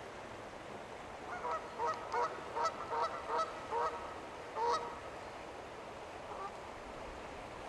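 Waterfowl honking: about nine short honks in a quick series, starting about a second in and stopping near the five-second mark, with one fainter honk after, over a steady background hiss.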